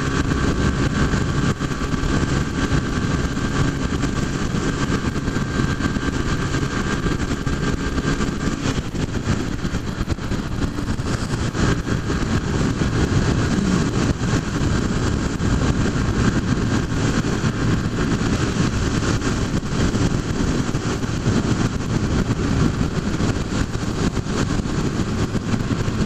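Honda CG 150 Fan motorcycle's single-cylinder four-stroke engine running at steady highway cruising speed, heard from a camera on the bike, mixed with heavy wind rush on the microphone.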